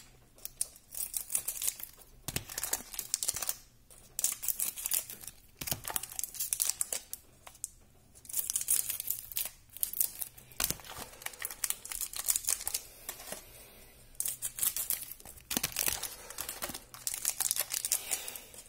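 Foil wrappers of trading-card packs being torn open and crinkled by hand, in irregular bursts of crackling with short pauses between.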